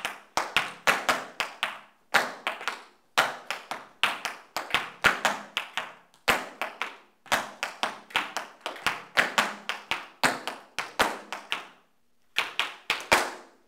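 Tap shoes striking a hard studio floor: a tap dancer's steps in short phrases of quick, sharp taps, with brief pauses between phrases.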